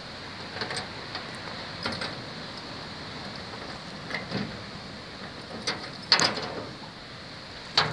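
Padlock and metal hasp on a checker-plate toolbox clicking and rattling as a key unlocks it: several sharp metallic clicks, the loudest about six seconds in, over a steady hiss.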